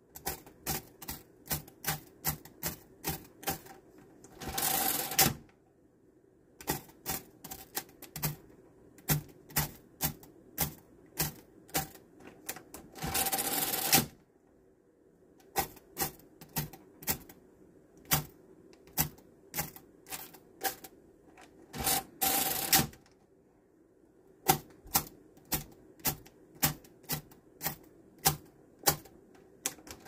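Full-keyboard mechanical calculator: its keys are pressed one at a time, each a sharp click, about two a second. Three times, about five, thirteen and twenty-two seconds in, the machine runs through a roughly one-second add cycle.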